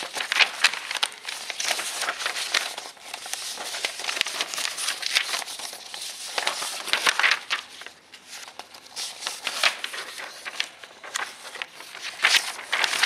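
Printed paper sheets rustling and crinkling as they are handled and turned over, in repeated crackly bursts.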